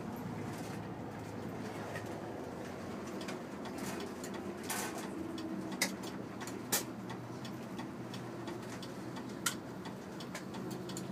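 Airport apron bus running at low speed, heard from inside the cabin as a steady low engine drone, with a few sharp clicks.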